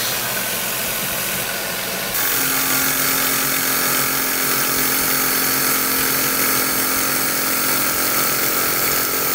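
Tormach PCNC 770 CNC mill's spindle running with a fly cutter taking a light 0.010-inch finish pass across round stock: a steady machining whine with a few held tones, stepping up louder about two seconds in.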